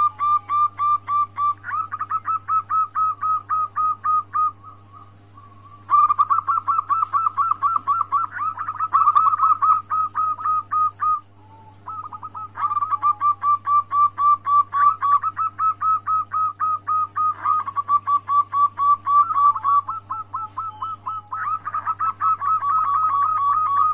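Female zebra dove (perkutut) calling: long runs of quick, rapidly repeated cooing notes, about five a second, in bouts of several seconds with short breaks about four and eleven seconds in. It is the call a hen gives to draw a male into breeding condition.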